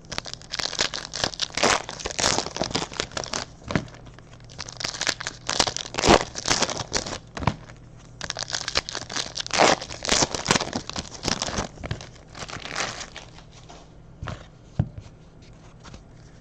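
Foil trading-card pack wrappers being torn open and crumpled, a dense irregular crinkling and crackling that thins to a few scattered clicks near the end.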